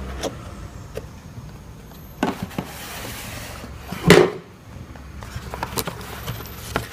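Cardboard knife box being opened and its packaging handled: scattered light clicks and rustles, with a louder scrape or tear about four seconds in.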